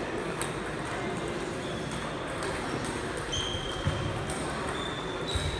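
Sports-hall ambience at a table tennis tournament: scattered clicks of celluloid-type ping-pong balls hitting bats and tables, over a background of voices. A few short high squeaks come in the second half.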